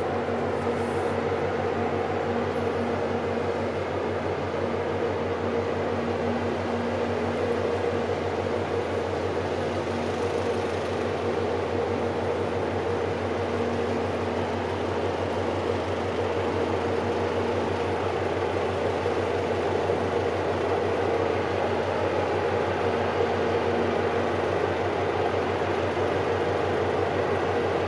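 Container ship's engines running with a steady low drone, a faint steady tone held above it.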